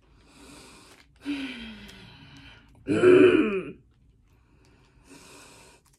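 A woman sighing and groaning in frustration. A long sigh falls in pitch, then a louder voiced groan comes about three seconds in, with breathy exhales around them.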